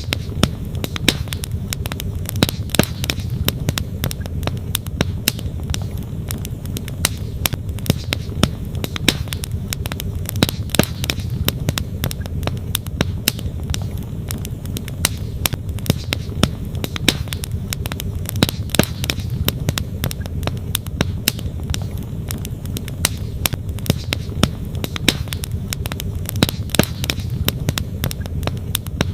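Wood campfire crackling, with frequent sharp pops and snaps from the burning logs over a steady low rush of flowing creek water.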